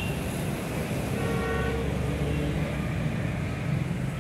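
Steady road traffic noise: cars passing on a busy road.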